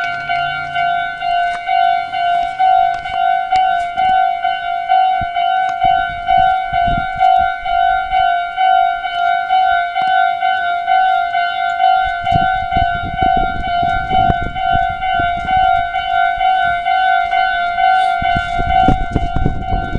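Japanese railway crossing's electronic warning bell ringing steadily at about two dings a second. A passing train's rumble rises under it from about halfway through and is loudest near the end.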